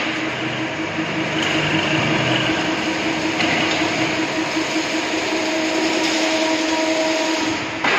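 Chain-link mesh weaving machine running: a steady mechanical din with a constant hum.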